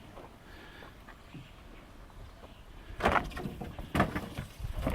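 Quiet for about three seconds, then three bursts of knocks and scrapes about a second apart, from handling at the car while the spare tire is fetched.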